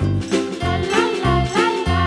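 Children's background music with a steady bass beat under a bouncy melody.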